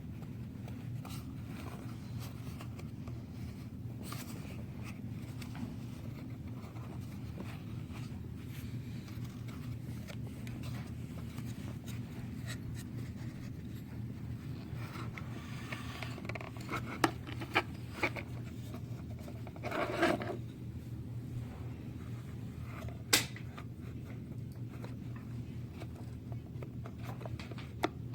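Hands working small plastic parts of a 1998 Audi A4 central-locking vacuum pump apart: faint scraping and rubbing over a steady low hum, with a few sharp clicks in the second half and one short louder scrape.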